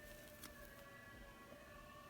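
Near silence: a faint steady hum of thin tones in the room, with one faint tick about half a second in.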